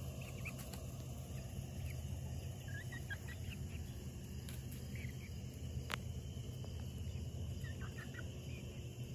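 Nine-week-old chickens, young cockerels and a pullet, giving short, high peeps every so often as they forage, over a steady low background noise. One sharp click about six seconds in.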